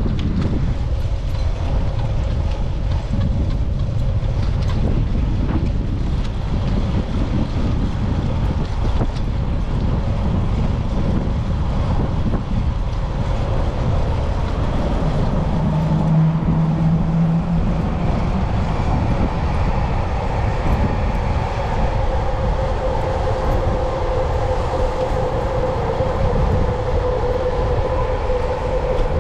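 Wind buffeting a helmet- or bike-mounted action camera's microphone, with the rumble of the bicycle rolling along a paved path. A steady hum grows stronger through the second half.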